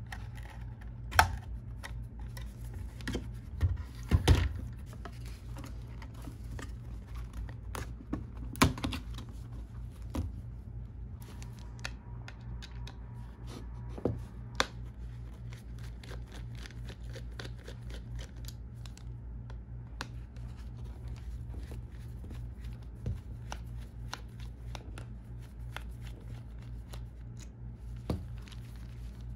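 Small clicks, taps and knocks of a 2013 Mac Pro's metal and plastic parts being handled and worked apart by gloved hands. A few sharper knocks stand out, about a second in, around four seconds, near nine and near fifteen seconds, over a steady low hum.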